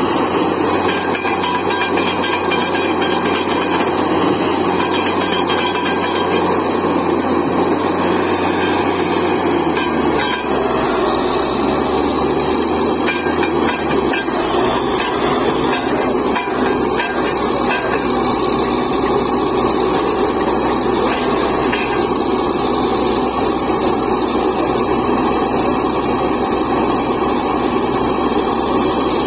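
Truck-mounted borewell drilling rig running steadily while drilling, its engine and drill working without a break. The low engine note changes about ten to fourteen seconds in.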